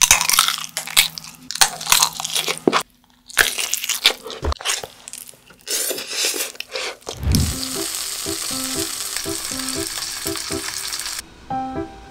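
Close-miked eating sounds: crunchy bites and chewing of a kielbasa sausage, then slurping of spicy noodles, in quick succession. From about seven seconds in, a steady frying sizzle starts and cuts off near the end, over background music with a bouncy beat.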